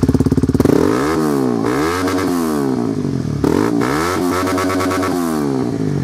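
Honda CBR125R's single-cylinder 125 cc four-stroke engine through a Scorpion aftermarket exhaust, just started and revved up and down four or five times, the pitch climbing and falling with each blip of the throttle.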